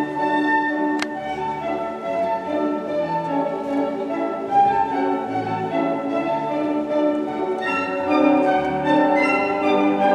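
Classical orchestral ballet music with violins and other strings, played as the accompaniment for the dance.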